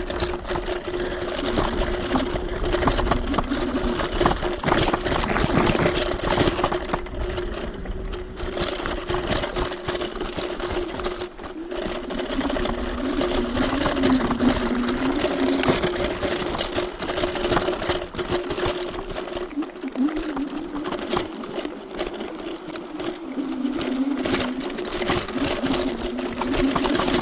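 TRBK-M2 electric hyperscooter's motors whining with a steady tone and a second pitch that wavers up and down with speed, over constant rattling and knocking as it rides a rough trail.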